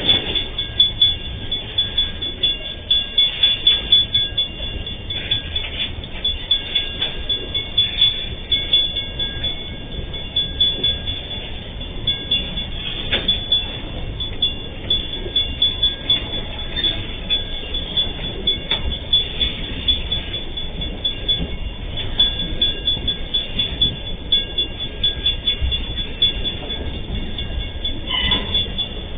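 Container freight train on flat wagons rolling past, its wheels clattering in a steady rhythm over the rail joints. Steady high ringing tones sit above the rumble, and there are a few sharp knocks.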